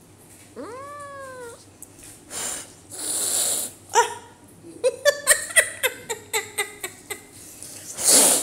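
Persian cat meowing: one long rising-and-falling meow about half a second in, then a string of short, quick cries in the second half. Breathy, hiss-like bursts come in between, and the loudest is near the end.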